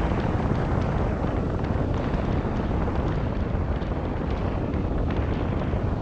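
Steady low rumble and hiss of a car on the move: tyre and road noise mixed with wind buffeting the microphone.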